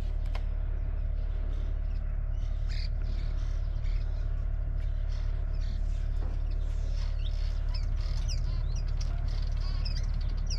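Small birds chirping with short, quick rising and falling notes, growing busier in the second half. Under them runs a steady low rumble.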